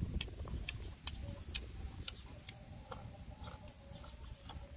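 A person chewing crisp green mango dipped in chili salt: scattered small crunches and mouth clicks. A faint steady tone runs underneath from about a second in.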